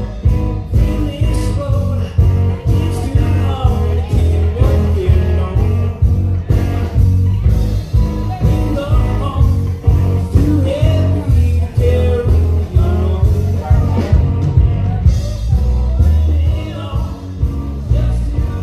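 Live rock band playing: a lead singer sings over electric guitar, bass and drums with a steady, heavy beat.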